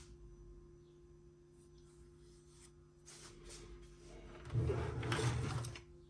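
Handling noises from the Macintosh Plus's plastic case being worked on during disassembly: a few light scratches, then a louder rubbing, scraping noise lasting about a second and a half near the end, over a faint steady hum.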